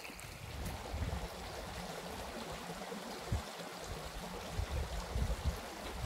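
Shallow spring-fed stream running steadily over gravel, with uneven wind rumble on the microphone.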